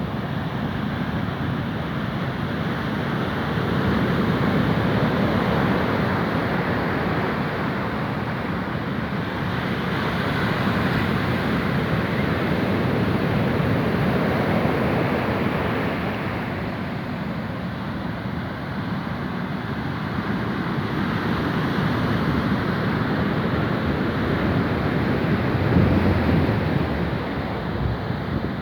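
Sea waves washing and surging, the noise swelling and easing every several seconds, with wind on the microphone.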